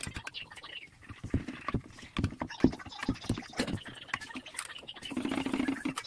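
Wooden rolling pin knocking and rolling on a wooden board as paratha dough is rolled out: a run of irregular light knocks. Near the end comes a short rushing hiss.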